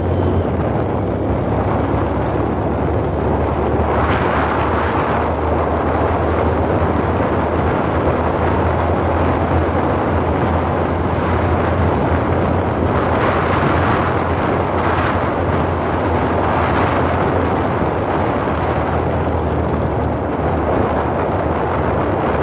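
Heavy wind buffeting the microphone over a steady low rumble, swelling in gusts several times.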